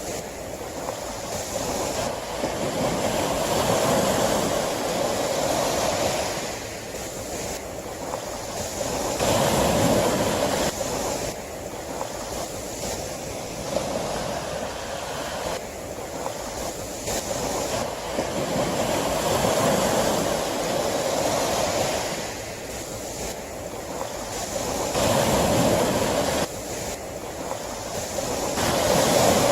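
Sea waves breaking and washing up the shore, a steady rush of surf that swells and falls back every five or six seconds.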